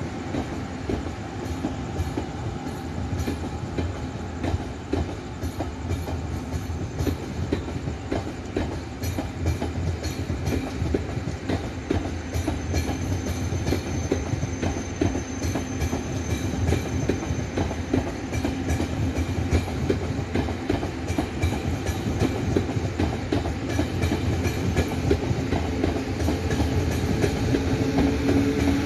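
Taiwan Railways PP push-pull Tze-Chiang express departing, its passenger cars' wheels clattering over the rail joints in a steady run of clicks over a rumble. It grows gradually louder, and a low hum comes in near the end.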